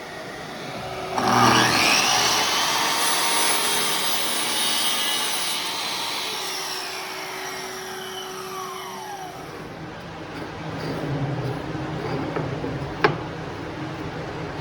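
Electric woodworking power tool switched on about a second in, its motor spinning up to speed, running a few seconds, then winding down with falling pitch after switch-off. A sharp click comes near the end.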